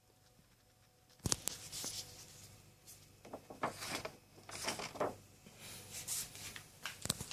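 A sharp click about a second in, then a run of irregular rustling and scraping handling noises.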